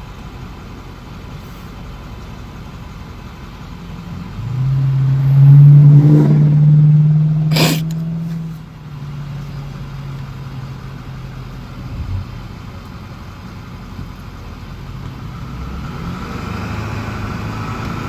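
Road traffic with a vehicle engine rumbling. A heavy engine drone swells loudly about four seconds in, peaks, and fades out about nine seconds in. A sharp click comes near its end, and road noise builds again near the end.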